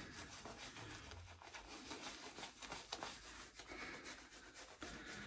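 Shaving brush working lather over a scalp: faint, irregular scratchy rubbing strokes.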